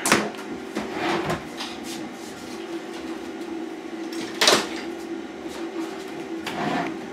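Tools and parts being handled and set down on a workbench: a few knocks and clicks, the sharpest about four and a half seconds in, over a steady faint hum.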